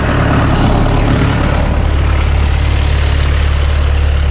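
Tractor's diesel engine running steadily while pulling a disc harrow, a strong even low hum with mechanical noise above it.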